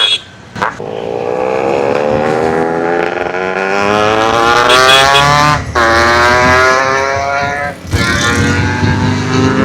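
Yamaha RX135 two-stroke single-cylinder engine through an open-cat silencer, accelerating on the road. Its pitch climbs steadily, drops sharply at gear changes just after the start and about five and a half seconds in, then climbs again, with a brief drop in level near eight seconds.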